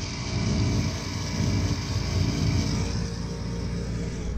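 A Bryant gas furnace's fan motor running steadily, a low hum and rumble under an even airy hiss.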